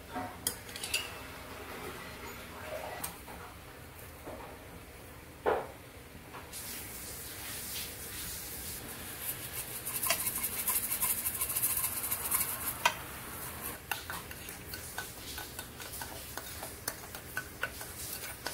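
Seasoning being mixed in a small ceramic bowl: a spice shaker hissing as it is shaken into the bowl for several seconds, then a metal spoon stirring the paste with quick light clinks and scrapes against the bowl, with a few knocks of dishes early on.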